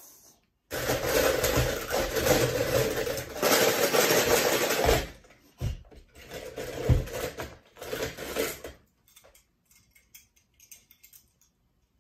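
Die-cast toy cars clattering against each other and a plastic bowl as a hand rummages through them: a long stretch of rattling, a second shorter burst, then a few scattered clicks as one is picked out.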